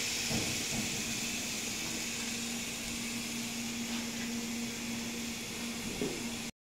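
Steak sizzling on a hot electric grill plate: a steady, even hiss with a steady low hum beneath it. The sound cuts off suddenly near the end.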